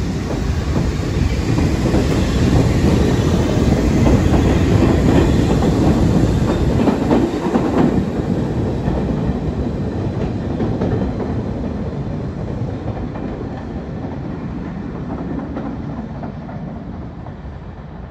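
R68A subway train running past on the rails and moving away: rumble and wheel clatter over the rail joints, loudest in the first half, then fading steadily as the train recedes.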